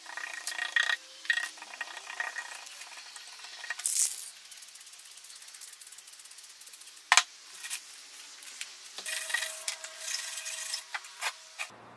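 Hands rubbing and pressing a paper stencil against a wooden crate, then a cloth wiping the wood, in short scraping and rustling spells. A brief hiss about four seconds in, from a short burst of aerosol spray paint, and one sharp knock about seven seconds in.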